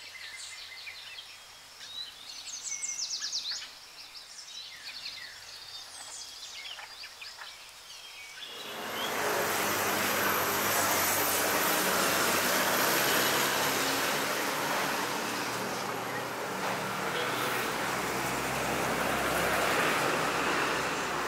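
Birds chirping over a quiet outdoor background. About eight seconds in, this cuts to steady road-traffic noise from a busy street that runs on to the end.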